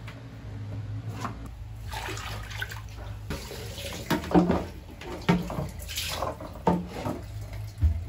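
Wet laundry being swished and squeezed by hand in a plastic basin of soapy water: irregular sloshing splashes, starting a couple of seconds in and busiest in the second half.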